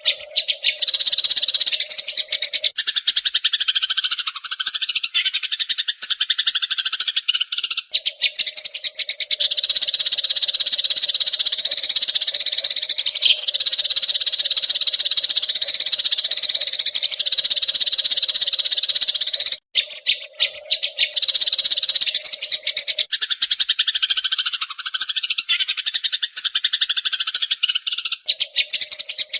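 Wild Eurasian tree sparrows chattering and chirping continuously in a dense, rapid stream, with a steady low hum that drops out twice for several seconds.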